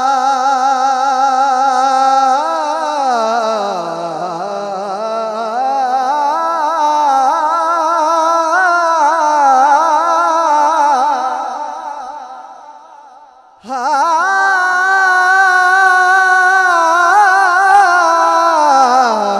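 A man singing a devotional Urdu naat into a microphone, holding long wordless notes with a wavering vibrato that slide slowly up and down. About two-thirds of the way through the voice fades away, then comes back suddenly on a new held note.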